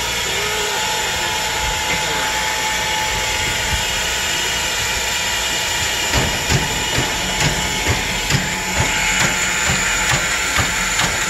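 Steam locomotive at a standstill, hissing steam steadily with a thin steady tone over it. From about halfway through, a run of quick, uneven knocks joins in.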